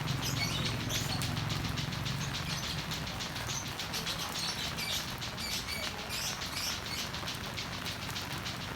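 Heavy rain falling, heard as an even wash with dense, quick drop ticks, while small birds chirp on and off. A low hum fades out after about two seconds.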